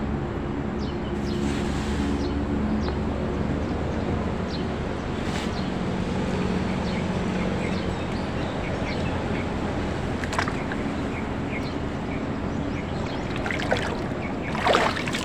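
Steady outdoor background noise, with small birds chirping here and there and a faint low hum that comes and goes.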